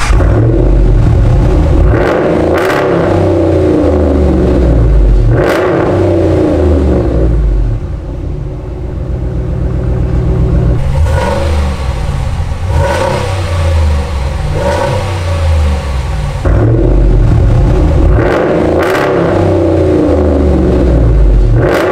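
Ram 1500's 5.7 L Hemi V8 running through a muffler-delete exhaust, where a Y-pipe replaces the mid muffler. The throttle is blipped several times, and each rev falls back toward idle, with a quieter idling stretch near the middle.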